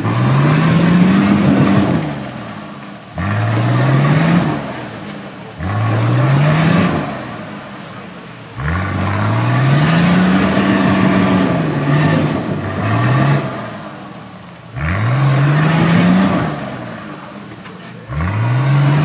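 Four-wheel drive's engine revved in repeated bursts, about every three seconds, each rising in pitch and then dropping back, as it inches up a steep rocky, rutted track.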